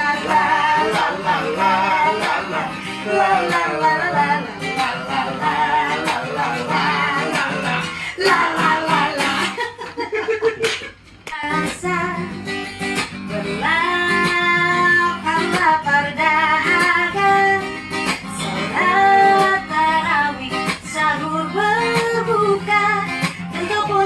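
Acoustic guitar strummed as accompaniment to singing. The music drops away briefly about ten seconds in, then the guitar and voice pick up again.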